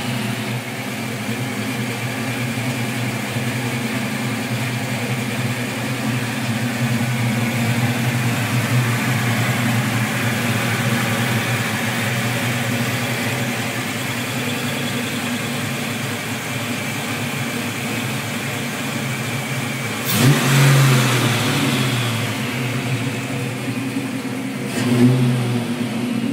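A 1987 Ford Mustang 5.0 V8 idles steadily through BBK shorty headers, an H-pipe with no cats and a two-chamber Flowmaster American Thunder exhaust, with the header flange leak now sealed. The throttle is blipped twice, about 20 seconds in and again near the end.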